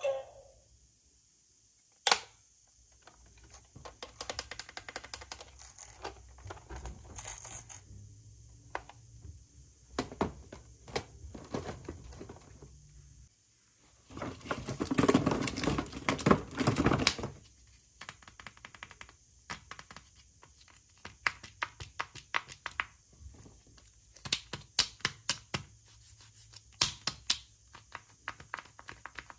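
Small plastic toys and packaging being handled: scattered clicks and taps, with a stretch of louder rustling and crinkling about halfway through.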